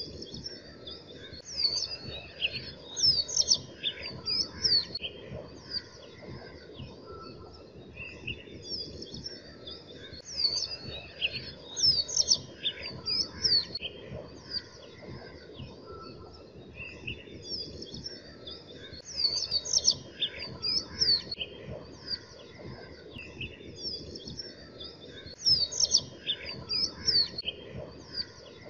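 Small birds chirping in quick high runs that come in bursts about every eight seconds, the same pattern repeating each time, over a steady low hiss.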